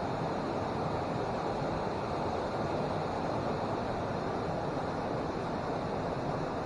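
Small mountain stream rushing over rocks: a steady, even wash of running water.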